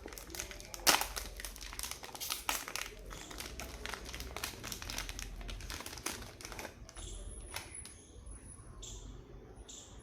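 Crinkling and crackling of a chocolate wrapper being handled and opened, with a sharp loud crackle about a second in; the crinkling thins out to a few quieter rustles after about seven seconds.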